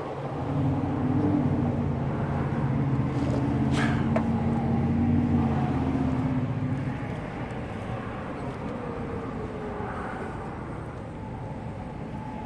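A motor vehicle engine running close by with a steady low hum, loudest for the first several seconds and then fading away. There is a single sharp click about four seconds in.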